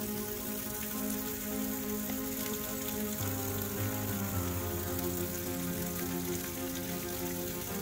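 Water from a garden hose nozzle spraying onto a tree trunk and its bark, a steady rain-like hiss. Under it, slow sustained music of held chords that change every second or so.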